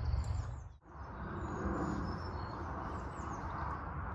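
Steady outdoor noise, like wind on the microphone, with small birds chirping and singing in the background. The sound drops out briefly just under a second in.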